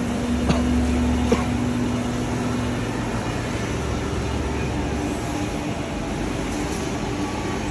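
Steady hum and rumble of factory machinery, with a held tone that stops about three seconds in. Two sharp knocks come within the first second and a half.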